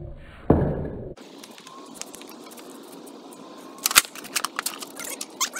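Skateboard deck hitting concrete during failed heelflip attempts: a loud smack with a short rumble of wheels about half a second in, then a sharp crack near the end as the board lands upside down, followed by several smaller clattering knocks.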